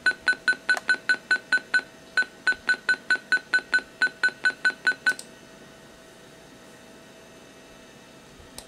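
Short electronic beeps, all on the same high pitch, repeating about five times a second from a Macintosh SE/30's built-in speaker as the Buick Dimensions program plays its sound demo. They break off briefly about two seconds in and stop about five seconds in. A single sharp click comes near the end.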